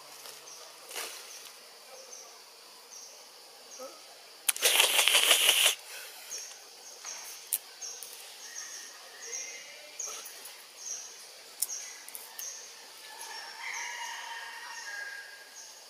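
Forest sounds: a loud fluttering rustle lasting about a second, near the middle. Behind it a faint high chirp repeats about twice a second, and faint pitched animal calls come near the end.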